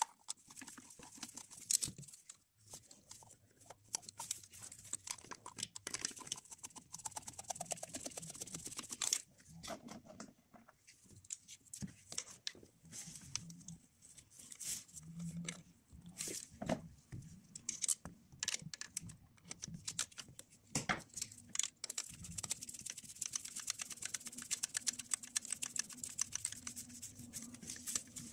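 Hand ratchet on a long socket extension clicking in quick runs as the bolts of the plastic thermostat housing on a 1.9 TDI engine are driven in, with occasional louder clicks and knocks of the tool.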